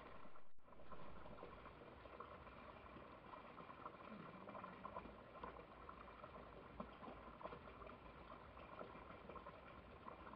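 Near silence: faint crackling background noise, with a brief low tone about four seconds in.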